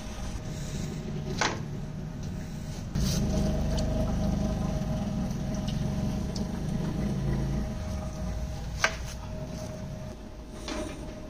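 Plastic sheeting and aluminium foil rustling and crinkling as foil-wrapped legs of lamb are lifted out of a steamer pot, with two sharp clicks and a steady low hum underneath.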